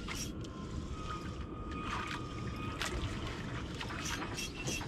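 Sea water sloshing and splashing against the hull of a small fishing boat, with a steady low wash of wind and sea and many short, sharp splashes and clicks.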